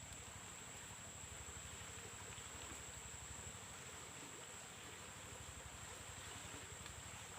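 Faint background noise with a steady high-pitched whine and no distinct events.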